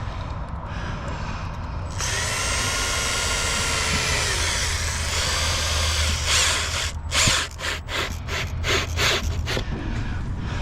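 Power drill driving screws into wood: a steady motor whine for about three seconds, then a quick string of short trigger spurts as the screw is snugged home.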